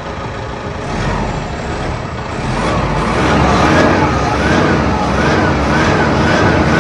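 Toyota Hilux Revo Rocco's 2.8-litre turbo-diesel engine being revved while parked: the revs climb about a second in, then from about three seconds in rise and fall quickly over and over, about one and a half times a second, as the accelerator is pumped.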